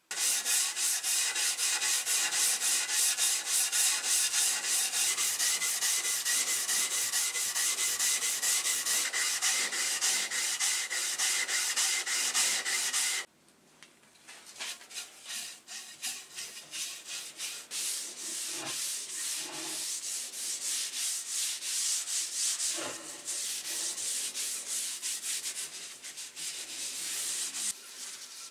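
A wooden hammer handle being sanded: loud, continuous scraping that cuts off abruptly after about thirteen seconds. Then quieter rubbing as a paper towel is wiped back and forth along the handle.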